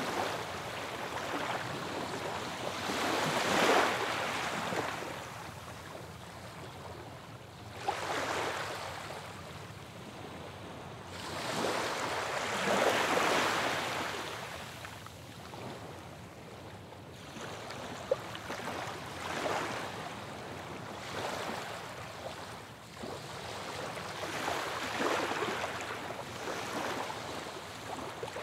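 Sea waves breaking and washing up on a shore, swelling and fading roughly every four to six seconds. There is one short click partway through.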